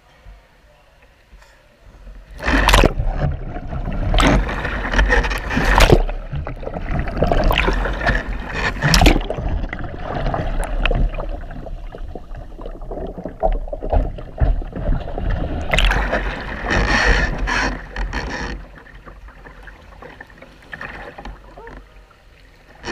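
Kayak capsizing and rolling back upright in a pool: loud splashing and churning, bubbling water around the deck-mounted camera while it is under, starting about two seconds in and dying down to calmer lapping a few seconds before the end.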